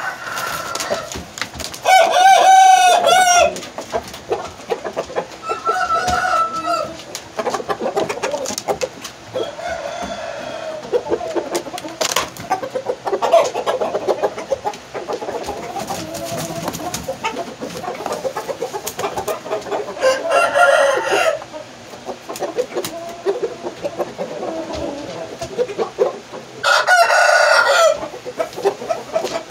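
Rooster crowing loudly three times, each crow about a second long, with clucking and fainter calls in between.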